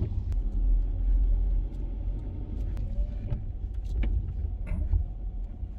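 Car driving, heard from inside the cabin: a steady low rumble from the engine and tyres, with scattered sharp ticks.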